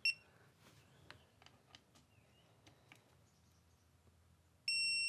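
Faint ratchet clicks of a torque wrench tightening a timing-chain guide bolt, framed by a short high beep right at the start and a steadier high beep of about half a second near the end: the electronic torque wrench signalling that the set torque of 6.4 N·m is reached.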